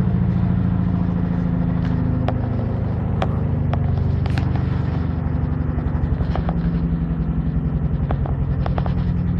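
Servis Gem M310 washing machine spinning its drum with a bedding load: a steady low hum with a rapid pulsing beat that grows stronger in the second half, and a few light clicks.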